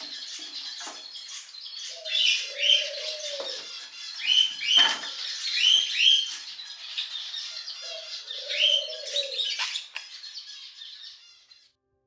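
Cockatiel chick calling: a continuous raspy hissing call with short rising chirps over it, often in pairs, and twice a lower drawn-out note. A sharp knock comes about five seconds in, and the calling cuts off shortly before the end.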